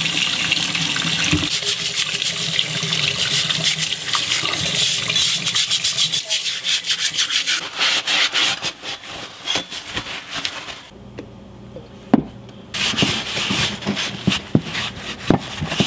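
A tap running into a bathroom sink while a steel axe head is scrubbed and rubbed clean, with quick rubbing strokes over the hiss of the water. About eleven seconds in the water sound cuts off, and quick dry rubbing follows as the axe head is wiped down with a paper towel on a workbench.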